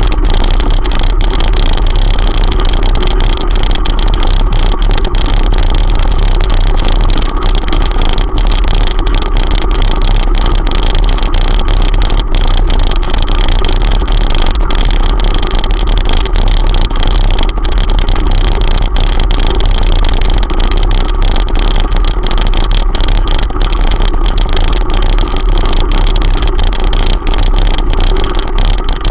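Continuous loud rumble of a mountain bike riding over a gravel track, heard through a handlebar-mounted camera: wind buffeting the microphone, mixed with tyres on loose stones and the rattle of the bars.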